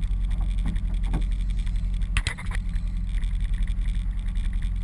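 Small boat's outboard motor running at low idle, a steady low drone. About two seconds in, a brief double clatter.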